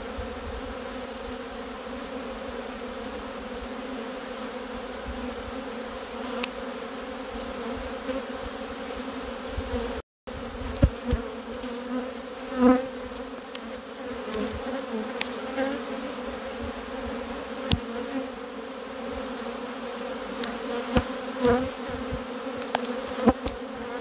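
A colony of honeybees buzzing in a steady hum around an opened hive, the bees growing irate at the disturbance. A few short knocks sound over the hum.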